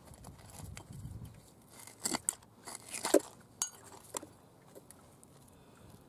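Stones knocking and clinking together as a bare hand rummages through them in a muddy meltwater rivulet, with wet squelching of mud and water. The sharpest knocks come in a cluster between about two and four seconds in.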